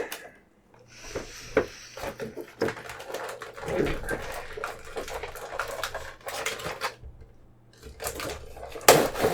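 Handling and opening of a diecast model car's retail packaging: rustling of cardboard and plastic with scattered clicks and knocks, pausing briefly near the end.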